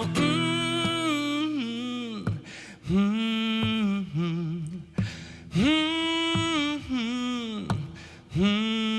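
Singer's voice holding long wordless notes in several phrases, each a couple of seconds long, with a short gap between them, with little or no instrumental backing.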